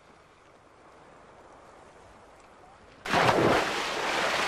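A person jumping from a boat into river water: a faint steady background, then a sudden loud splash about three seconds in, with the water churning for a second or two as it fades.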